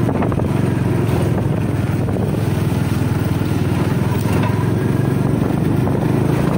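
Motorcycle engine running steadily at an even speed, heard from on board while riding.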